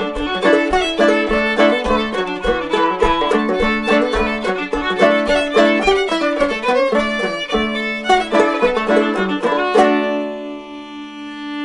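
Fiddle and homemade gourd banjo playing a fiddle tune together, the banjo's plucked notes under the bowed melody. About ten seconds in they stop on a final chord that rings on and fades.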